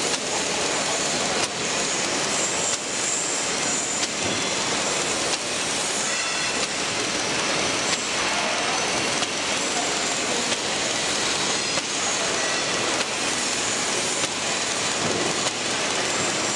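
Octans-126T thermal laminating machine running, laminating OPP film onto printed sheets: a steady, dense mechanical noise with faint regular clicks about every second or so.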